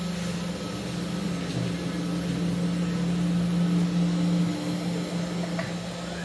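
A vertical 5-axis mini CNC machine's motors humming steadily as it moves its axes and tilts the spindle head under program control, with a small click near the end.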